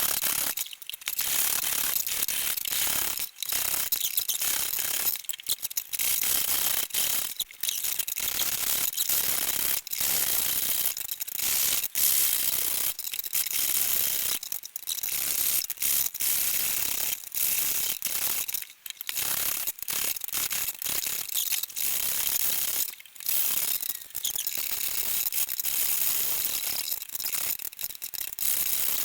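Turning tool cutting into a green-wood bowl blank on a pole lathe as it hollows the inside: a rasping, scraping cut that breaks off briefly about every two seconds as the treadle-driven blank reverses.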